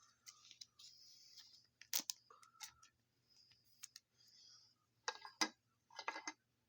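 Baseball trading cards being handled and flipped through: faint sliding rustles of card against card and small sharp clicks, the sharpest about two seconds in and again around five seconds.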